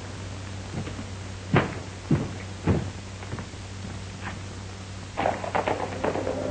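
Three sharp thuds about half a second apart, over a steady low hum; a denser run of sounds begins about five seconds in as music comes in.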